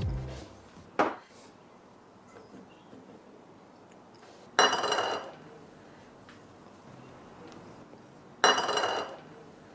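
Small glass prep bowls knocking and clinking against a stainless steel mixing bowl as dry ingredients are tipped in: a light knock about a second in, then two louder ringing clinks about four seconds apart.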